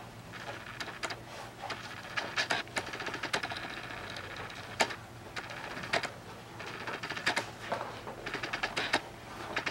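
Leather cowboy boot top and lining being worked and folded by hand: uneven crackles, creaks and rustles with scattered sharp clicks.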